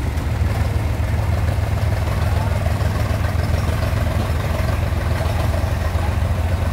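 Diesel engines of a farm tractor and a JCB backhoe running together under load while the backhoe pushes the tractor out of deep mud. A steady, loud low engine note that stays even throughout.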